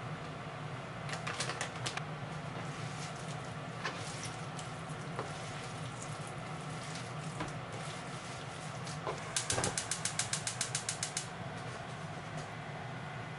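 Hands working raw meat on a plastic cutting board, with small handling taps, over a steady low hum. Near the end comes a rapid run of about fifteen sharp clicks lasting under two seconds.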